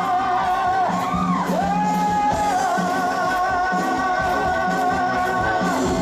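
Live pop-rock band music: long held lead-melody notes over a steady band accompaniment, in the break between two choruses of a Mandarin pop song.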